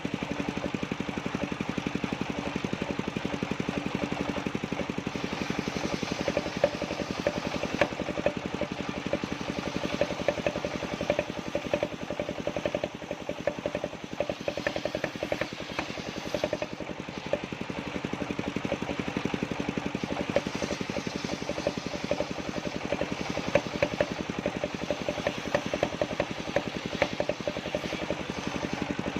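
Engine driving a circular-saw sawmill, running steadily, with scattered sharp clicks and rattles.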